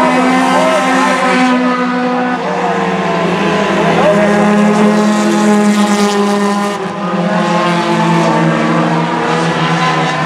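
Several four-cylinder stock car race engines running at speed together, their overlapping pitches shifting as the cars lap and pass.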